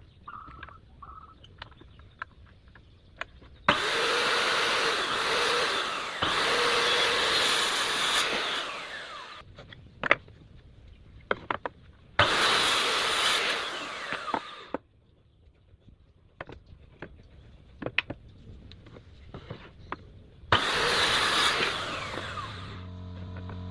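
DongCheng DMY02-185SH 1,100-watt circular saw cutting wood in several runs of a few seconds each. After each run the blade winds down with a falling pitch, and there are clicks and knocks in the pauses between cuts.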